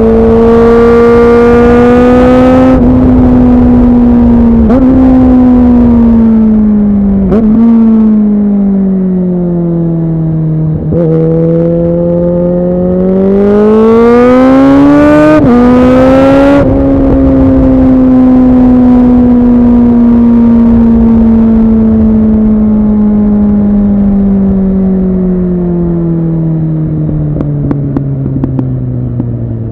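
A 2009 Suzuki Bandit 650's inline-four through an aftermarket MIVV exhaust under way. The revs climb hard at the start with short dips at the gear changes, fall off, climb hard again to a peak about two thirds of the way through, then sink slowly and steadily as the bike rolls off.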